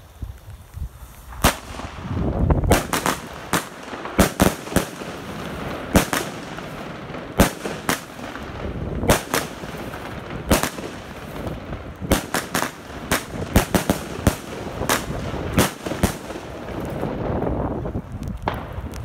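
Wolff Imperial 16-shot firework cake firing: a string of sharp shots and bangs, one every half-second to second, with crackling between them. The shots start about a second and a half in and keep on until near the end.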